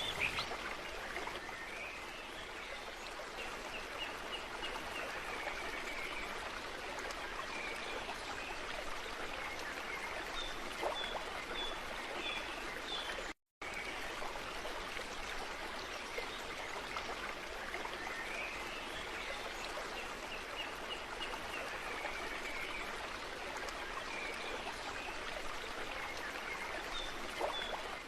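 Stream water flowing steadily, with faint high chirps over it. The sound cuts out for a split second about halfway through.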